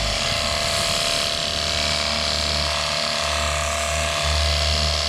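Jet Hawk cordless pressure washer running: the electric pump's steady whine and hum under the hiss of its jet spraying, with the hum dipping briefly twice.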